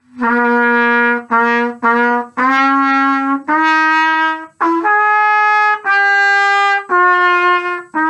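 Valved brass instrument playing a short phrase of about nine sustained, separately tongued notes. The pitch steps upward through the middle and comes back down over the last few notes.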